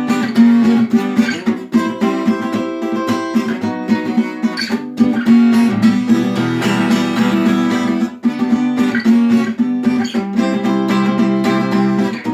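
Acoustic guitar strummed in a steady rhythm, playing chords of a song with no voice over it.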